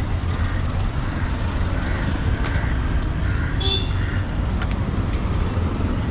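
Steady low rumble of city street traffic, with a short high beep about three and a half seconds in.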